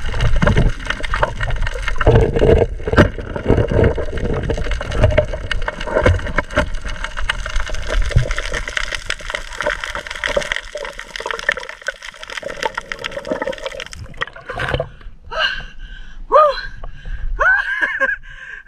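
Underwater sound of a swimming diver: water rushing and gurgling against the camera, with many small clicks and knocks. About fourteen seconds in this gives way to the surface, with splashes and short vocal sounds that glide in pitch.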